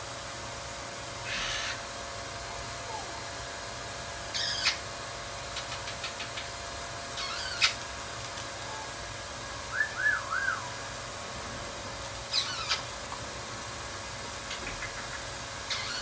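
Short bird calls and chirps every few seconds, with a run of small whistled chirps about ten seconds in. They come over the splashing of an Eclectus parrot flapping its wet wings in a tub of water, and a steady background hum.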